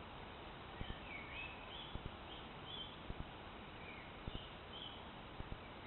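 Small songbirds chirping in short, repeated phrases over a steady outdoor hiss, with faint low knocks in pairs about once a second.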